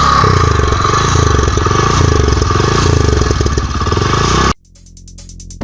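Motorcycle engine revving up and down repeatedly, then cut off abruptly about four and a half seconds in. Electronic music starts right at the end.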